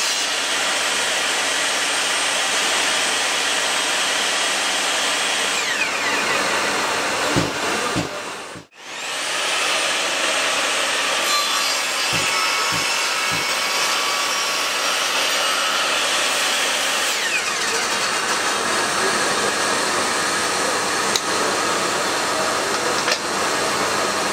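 Bosch GTS 10 XC table saw running with its blade cutting wood. A falling whine comes about six and again about seventeen seconds in. The sound briefly drops out near nine seconds in.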